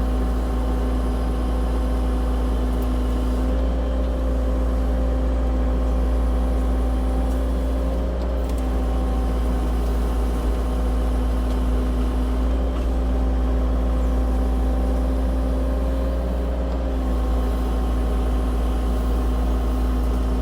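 Cat 304 E2 mini excavator's diesel engine running steadily under load, with a hydraulic whine that shifts slightly in pitch a few times as the arm and bucket work.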